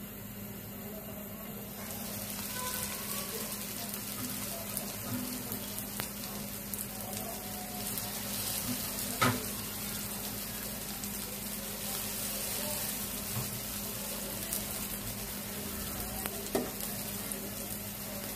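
Spring rolls frying in shallow oil in a nonstick pan: the sizzling starts about two seconds in as the first rolls go into the hot oil and then runs steadily. Two sharp clicks cut through it, a loud one about halfway and a smaller one near the end.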